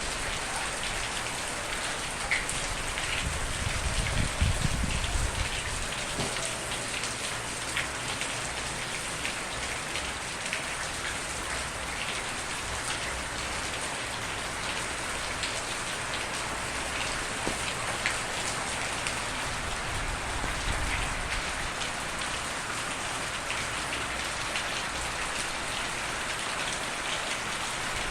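Steady rain falling on a surface, with individual drops ticking distinctly over a constant hiss. A brief low rumble swells about four seconds in.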